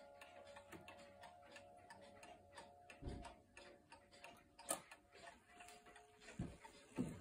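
Spring-driven Garrard mantel clock movement ticking quickly and evenly, soft, while the last notes of its gong rods die away. A few dull knocks come from the wooden case being handled.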